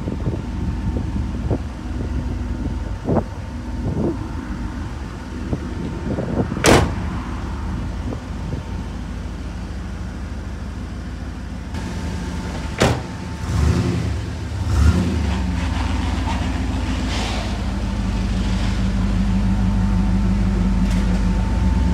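1986 Chevrolet Camaro IROC-Z's V8 engine idling with a steady low rumble, which grows stronger near the end. Two sharp knocks stand out above it, about a third of the way in and just past halfway.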